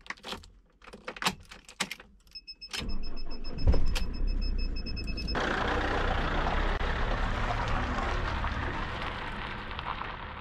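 Keys jangling and clicking in the ignition of an Adria motorhome, a high pulsing beep, then the starter cranks and the engine starts about three seconds in, then runs steadily.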